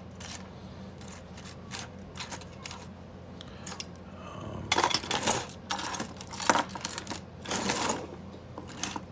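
Small metal clicks and rattles of lock picks and a padlock being handled, with busier, louder clattering about five seconds in and again near the end.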